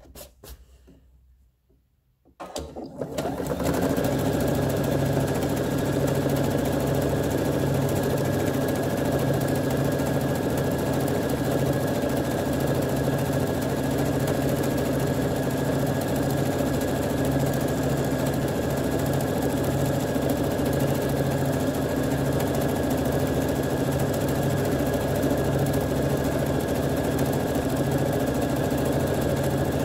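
Domestic sewing machine starting up about three seconds in, then running steadily at speed as it stitches fabric offcuts laid on soluble film.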